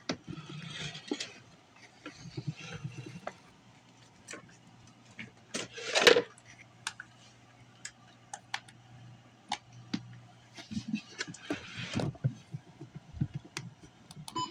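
Irregular light clicks and rustling handling noise over a low steady hum, with a louder rustle about six seconds in.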